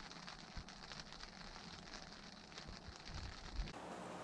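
Rain pattering on a tent, heard from inside: faint, quick, irregular ticking with a few low thuds. Near the end it gives way to a steady outdoor hiss.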